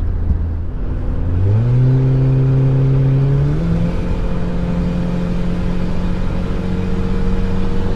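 Volkswagen Passat turbo wagon's automatic transmission kicking down under full throttle, heard from inside the cabin. The engine revs jump about a second and a half in, climb again about two seconds later, then hold high and steady over a loud, noisy exhaust that needs work.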